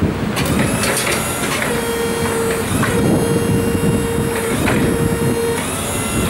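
Hyster electric forklift's motors whining as it is operated, with a steady mid-pitched hum that comes on three times for about a second or more each, over a low rumble of wind on the microphone.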